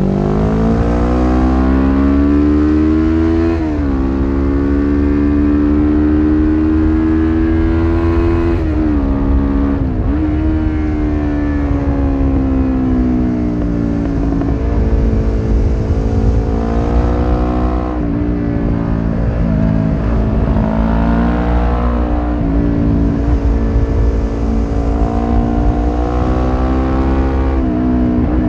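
Suzuki GS500E's air-cooled parallel-twin engine through a Takkoni slip-on exhaust with its dB-killer fitted, revving up and down while riding: the pitch climbs hard in the first few seconds, dips at a gear change, and rises and falls again several times as the throttle opens and closes. Heavy wind rumble on the microphone underneath.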